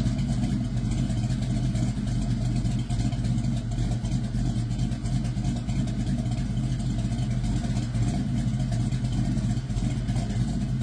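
Small-block Chevy 350 V8 running at a steady idle through its exhaust, with an even, unchanging note.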